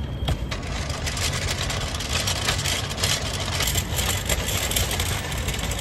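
Steady low rumble of vehicle engine noise, with a few faint clicks.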